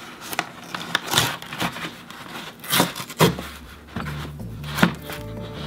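Cardboard mailer's tear strip being ripped open in a series of short tearing crackles. Soft background music comes in about three seconds in.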